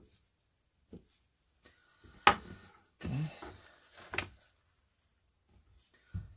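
Kitchen knife tapping down through soft cooked sweet potato onto a paper towel on a stone countertop, a few single taps; a sharp knock about two seconds in, then a paper towel crinkling as the cut pieces are tipped into a plastic container, with another knock soon after.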